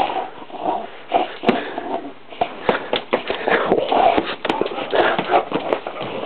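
Perro de Presa Canario playing tug-of-war with a cloth: short, irregular dog noises throughout, mixed with quick knocks and scuffs on a wooden floor.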